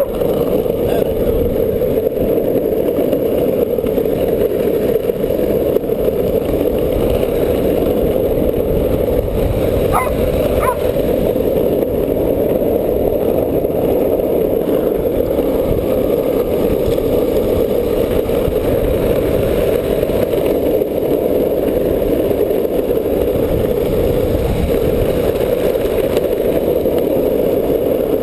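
Skateboard wheels rolling over asphalt with a steady, loud rumble as a dog tows the rider. Two brief high chirps come about ten seconds in.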